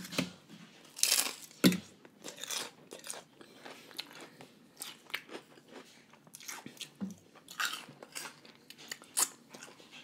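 A person biting into and chewing crunchy fried wonton chips topped with poke, making repeated crisp crunches throughout. The loudest bites come about a second in.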